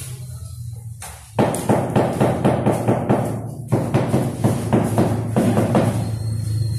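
Rubber mallet tapping a large floor tile down into its mortar bed: rapid, even thuds about four a second, starting about a second and a half in with a short break near the middle, over a steady low hum.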